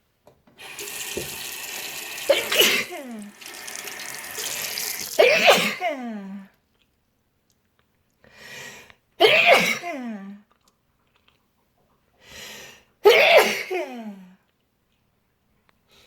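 A person sneezing hard four times after taking chhinkni, the Nepali sneeze-inducing herbal snuff. Each sneeze is preceded by a drawn-in, hissing breath, long before the first two and short before the last two, and each ends with the voice falling away.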